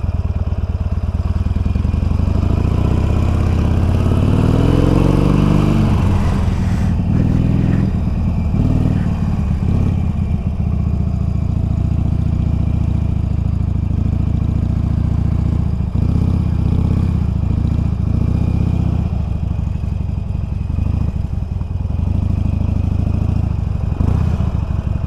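Harley-Davidson Iron 883's V-twin engine pulling up a steep climb. The revs rise for a few seconds, about two seconds in, then it runs steadily at a low, even rumble.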